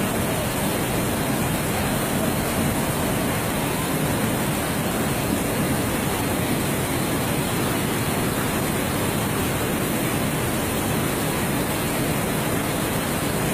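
Flash-flood torrent of muddy water rushing down a street: a steady, unbroken rush of water noise.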